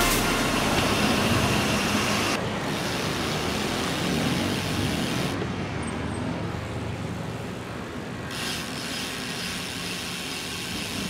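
Road traffic noise, an even rush of passing cars heard from a bicycle on the road, easing for a few seconds in the middle.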